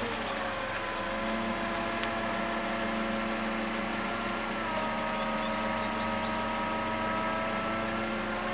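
2008 Volvo C70 retractable hardtop in motion: the roof's hydraulic pump motor hums and whines steadily as the folded roof panels rise out of the trunk. The whine shifts pitch about halfway through, then slowly creeps upward near the end.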